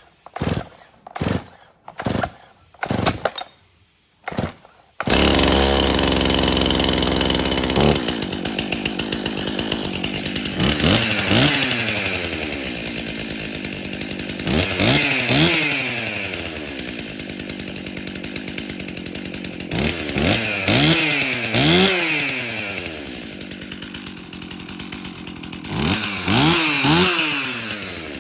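Stihl MS 261 M-tronic 50 cc two-stroke chainsaw being pull-started: several short pulls on the starter cord, then the engine catches about five seconds in. It runs fast for a few seconds, drops to idle and is revved up and let fall back four times, starting the way it should.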